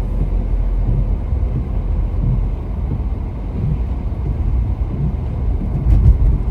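Car being driven, heard from inside the cabin: a steady low rumble of engine and tyre noise, with a brief thump about six seconds in.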